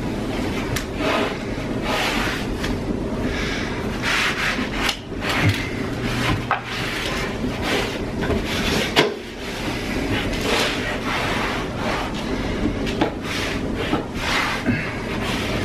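A cloth scrubbing back and forth along a painted baseboard and floor trim, a run of irregular rubbing strokes.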